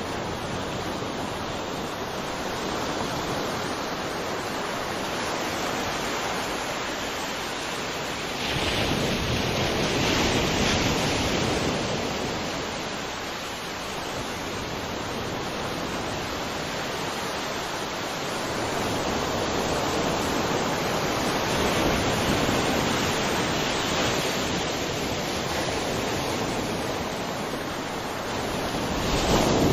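Sea waves breaking and washing ashore in a continuous rush of surf, swelling in surges: a big one about eight seconds in, more around two-thirds of the way through, and another at the very end.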